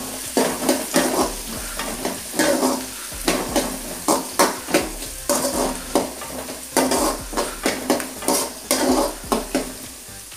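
Metal spatula scraping and stirring chopped onions, green chillies and garlic around an aluminium kadai, in repeated strokes over a steady sizzle as they sauté in hot oil.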